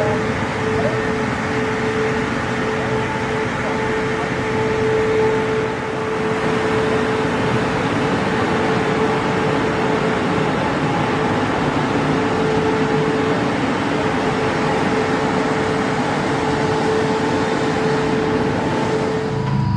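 Steady mechanical hum with a constant mid-pitched whine running under it, dipping briefly about six seconds in.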